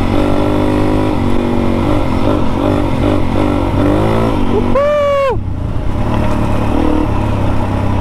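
Dirt bike engine running as the bike rides along a dirt track, with a low rumble of wind over the microphone. About five seconds in, the engine revs up sharply, holds for a moment, then drops off abruptly.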